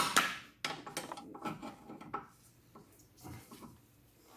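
Light metallic clinks and taps of hand tools against suspension hardware (stabilizer link bolt, nut and washer) being handled. There are several sharp clicks in the first two seconds, then quieter, scattered taps.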